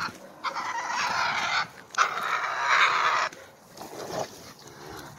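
A pit bull and a badger fighting: two harsh, rasping snarls of about a second each, the second starting about two seconds in, then quieter.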